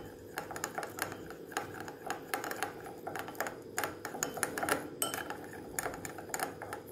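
Metal teaspoon stirring a gritty sugar-and-honey mixture in a ceramic bowl, scraping and clinking against the bowl in quick, irregular clicks.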